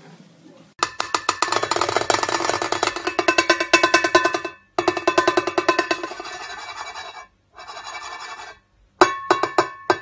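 A cockatoo tapping and rubbing its beak rapidly against a brass cymbal: fast runs of metallic taps that ring, with short pauses, then a few separate ringing strikes near the end.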